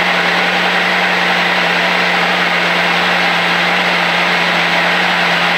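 Steady drone of a single-engine Cessna's piston engine and propeller, with airflow noise, heard in the cockpit on short final approach. It keeps one even low hum throughout.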